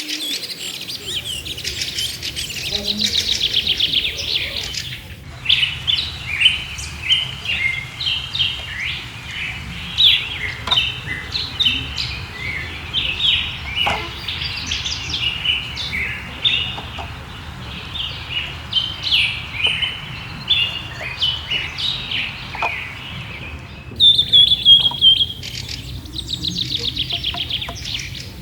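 Many small birds chirping and singing in quick, overlapping short notes over a low steady rumble. The mix of calls changes abruptly about five seconds in and again near the end.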